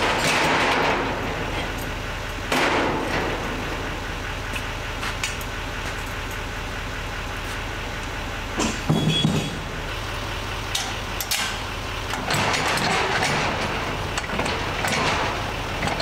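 Small utility trailer being hitched to a pickup's ball mount: scraping and rattling of the steel trailer tongue and chains, with one heavy metal clank about nine seconds in as the coupler meets the ball. A truck engine idles steadily underneath.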